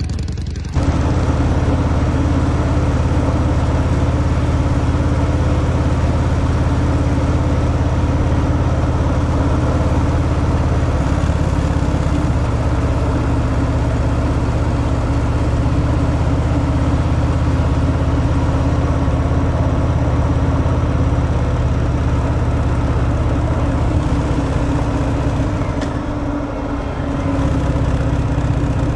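Harley-Davidson Fat Boy's V-twin engine, on its stock exhaust, catching about a second in and then idling steadily; near the end the idle dips briefly and picks up again.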